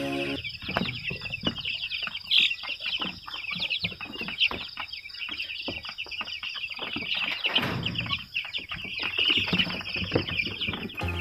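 A pen of young chicks peeping constantly, many short high cheeps overlapping, with a brief rustle of feathers or litter about three-quarters of the way through.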